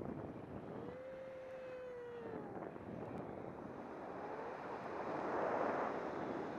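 Airflow rushing over the microphone of a camera held on a selfie stick by a tandem paraglider pilot in steep banking turns, swelling loudest about five to six seconds in. A single drawn-out tone rises and falls slightly about a second in.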